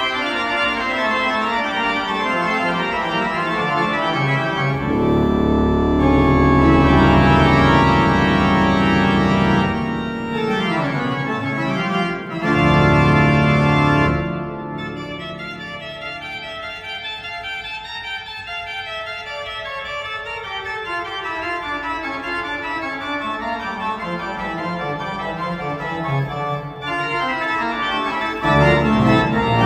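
Large church pipe organ with mechanical action, built in 1912 and rebuilt in 2000, playing a piece. It plays full and loud with deep sustained bass notes from about five to ten seconds in and again around twelve to fourteen seconds. A softer, thinner passage follows, and the loud bass comes back near the end.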